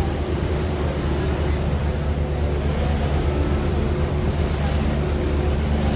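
Passenger boat's engine droning steadily under the rush of water against the hull, with wind buffeting the microphone.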